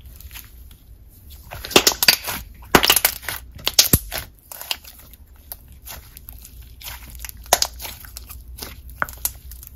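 Red jelly slime being poked and squeezed by fingers, giving clusters of sharp pops and clicks, busiest from about one and a half to four seconds in, with a few more later.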